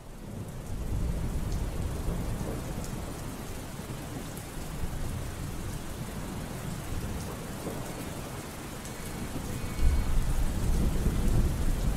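Steady rain with a deep rumble of thunder, fading in at the start; a louder thunder roll swells about ten seconds in.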